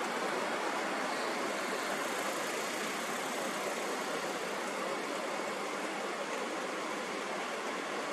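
Steady, unchanging rushing noise with little deep bass and no rhythm or breaks.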